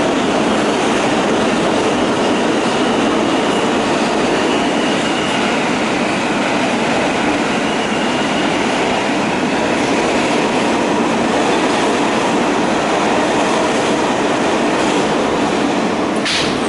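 Japanese-built New York City subway car running through the tunnel: steady wheel and track noise with a faint high whine, as the train comes to a stop at a station near the end. A sharp click sounds about a second before the end.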